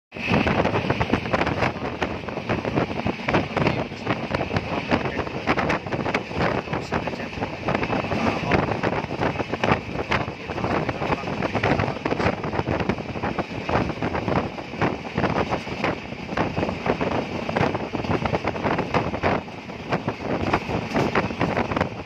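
A vehicle running steadily at speed, heard through an open window, with air rushing past and buffeting the microphone and frequent small rattles and knocks.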